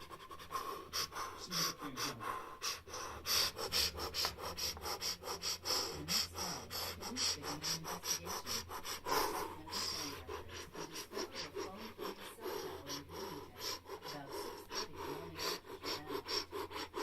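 Heavy breathing close to the microphone, uneven, with many short clicks running through it.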